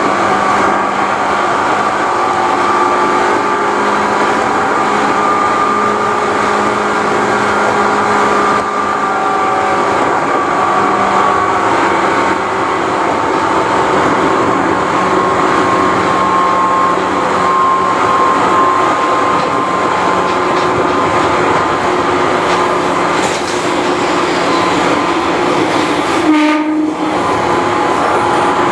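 Seibu New 101 series electric train's loud traction motors and gears whining steadily over rail running noise at speed, heard from the cab of the motor car. There is a brief break in the sound and a knock near the end.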